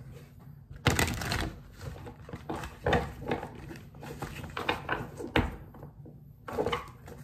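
Tarot cards being shuffled and handled by hand: a run of irregular papery rustles and quick snaps, in small clusters with short pauses between.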